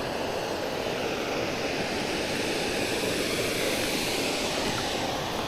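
Steady rushing of water pouring over a dam spillway.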